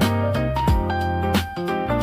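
Background music with a steady beat and held melodic notes.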